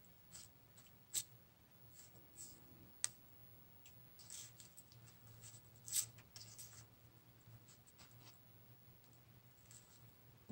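Faint handling of a sheet of stamped translucent paper on a journal page: light rustles and scattered small clicks and taps, the sharpest about a second in, three seconds in and six seconds in.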